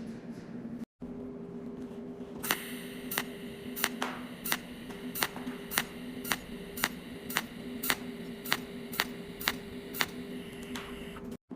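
Cold welding machine firing pulse after pulse: a sharp click each time, about one every 0.6 seconds for most of the stretch, over a steady electrical hum.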